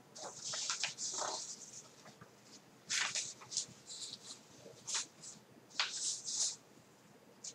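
Loose sheets of paper rustling as they are handled and leafed through, in a run of short, uneven bursts.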